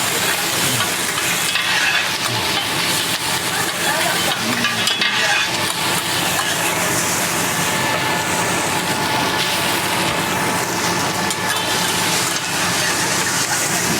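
Rice noodles and eggs sizzling on a hot teppanyaki iron griddle as they are stir-fried and turned, a steady frying hiss with stirring.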